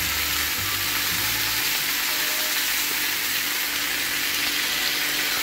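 Steady sizzling hiss from a baking tray of yogurt-marinated chicken and vegetables heating on a stovetop, the yogurt giving off its water as steam. A low hum sits underneath and stops about a second and a half in.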